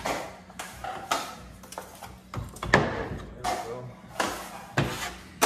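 Drywall taping knife scraping joint compound off a mud pan and spreading it into the inside corner of an arch: a run of short, irregular scrapes, about two a second.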